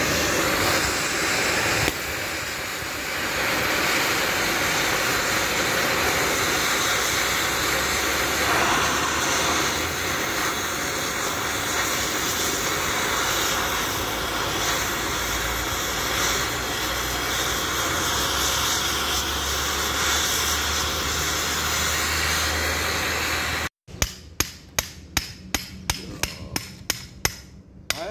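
Gas cutting torch flame hissing steadily as it heats a bearing on a Scania differential pinion shaft to loosen it. Near the end it gives way to sharp metallic knocks, about three a second, as a hammer drives a drift against the heated bearing to knock it off.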